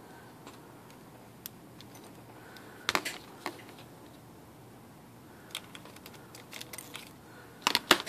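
Small metal parts of an IBM Selectric typewriter's mechanism clicking and tapping as a part is worked into place by hand and tool. There is a short cluster of clicks about three seconds in, scattered light ticks later, and the loudest clicks near the end.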